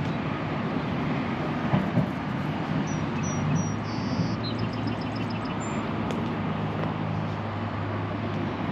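Steady hum of distant road traffic. About halfway through, a small songbird gives a few short high chirps, a brief buzzy note and a quick ticking trill.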